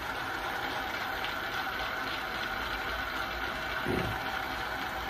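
Cylinder boring bar running steadily at speed, its electric motor and phase converter giving an even hum with a steady whine, the cutter spinning but not yet cutting into the cylinder wall.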